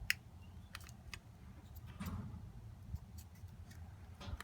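Small screwdriver prying at the plastic housing of a car brake light switch: a few sharp, light clicks and scrapes of metal on plastic, the loudest right at the start.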